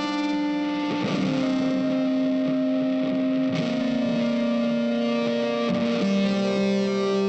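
Background music: sustained, effects-laden guitar chords that change about every two to three seconds.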